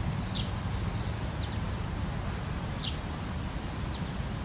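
Birds calling, a handful of short high chirps that fall in pitch, over a steady low rumble.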